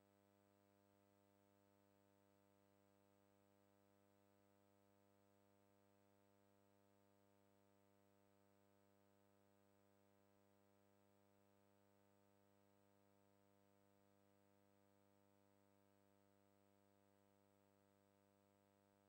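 Near silence, with only a faint steady hum and hiss from the transfer of a silent home movie.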